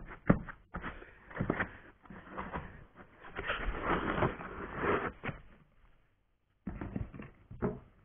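Hands rummaging through a cardboard box packed with polystyrene foam, foam and cardboard scraping and rustling with a series of knocks and clicks as parts are handled. There is a short pause about three-quarters through, then more knocks as metal frame rails are lifted against the box.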